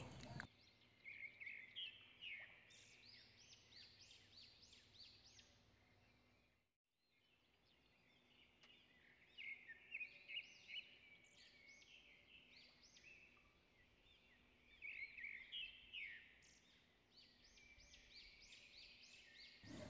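Faint chirping of small birds: quick runs of short, high chirps about a second in, again about nine seconds in and around fifteen seconds in, with near silence between.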